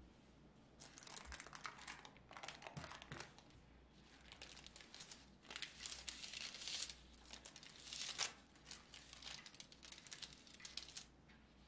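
Parchment paper crinkling and rustling in irregular bursts as a set slab of caramel is lifted out of its lined dish and the paper is pulled back from it.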